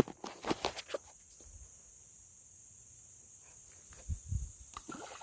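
Insects droning steadily in a high, thin band. A few sharp clicks come in the first second, and a couple of soft low thuds about four seconds in.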